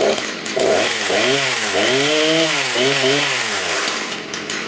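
Husqvarna 272 XP two-stroke 72 cc chainsaw running hard, its pitch rising and falling over and over as it is revved, then fading near the end.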